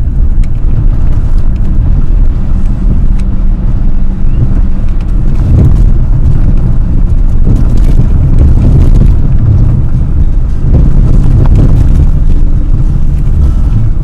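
Car driving on a rough, narrow road, heard from inside the cabin: a loud, steady low rumble of engine and tyres, with a few brief knocks from bumps in the middle.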